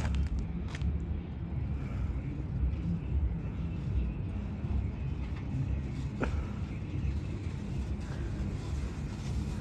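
Steady low outdoor rumble, with one short click about six seconds in.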